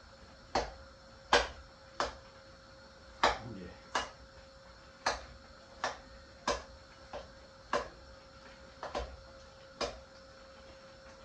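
Metal spoon knocking against a steel karahi while breaking up and mashing softened tomatoes in the chicken. About a dozen sharp clinks come at an uneven pace, roughly one a second, over a faint steady hum.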